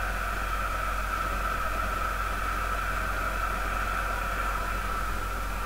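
Football stadium crowd: a steady din of thousands of supporters, with no single shout or cheer standing out.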